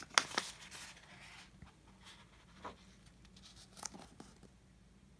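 A paper page of a picture book being turned by hand: a quick rustle and crinkle at the start, then a few faint taps and rustles as the page settles.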